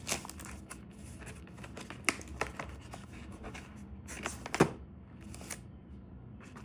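A mail package being handled and opened: packaging rustling, with a handful of sharp clicks and taps, the loudest about two-thirds of the way through, then quieter handling near the end.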